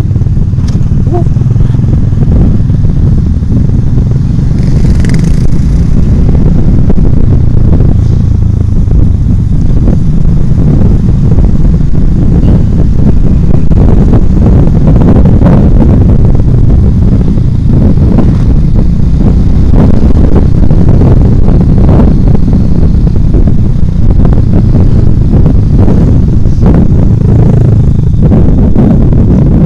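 Motorcycle on the move in traffic, heard from a bike-mounted camera: a loud, steady low rumble of wind buffeting the microphone mixed with engine noise, with other motorcycles riding close alongside.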